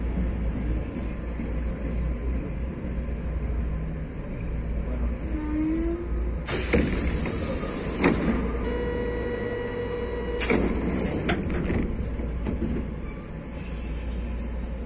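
TE-90 light rail car's steady low hum, with a sharp door clunk about six and a half seconds in, then a steady buzzer tone lasting about two seconds, ending with another clunk as the sliding doors shut.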